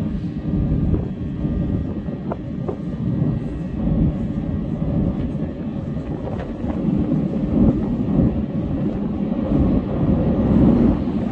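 Low, steady rumble of a metro train out of sight in the tunnel, echoing through the vaulted station and growing a little louder toward the end.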